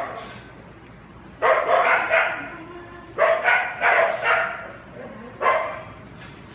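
Dog barking: short barks in three quick bursts, a few barks each, with a single bark near the end.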